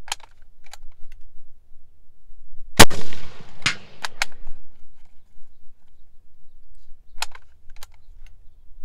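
A black-powder rifle shot about three seconds in, its crack trailing off in a long echo, followed under a second later by a second sharp report. A few light clicks come shortly after and again near the end.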